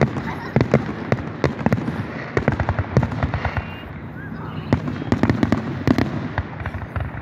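Aerial fireworks display: a rapid run of bangs and crackling from shells bursting, easing briefly a little past halfway, then picking up again.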